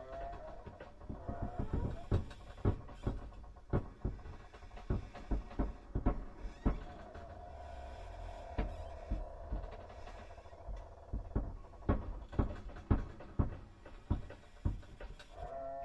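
Ghost sound effect: irregular knocks and clicks over a wavering, whining tone that swells and fades.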